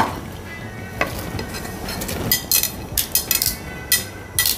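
Grated carrots being tipped and scraped off a plate into a pot of milk and rice on the boil: repeated sharp scrapes and clinks, more of them in the second half, over a steady bubbling.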